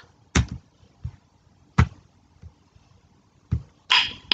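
A few sharp clicks and knocks at irregular intervals, about four in all, then a short breathy rush of noise with one last click near the end.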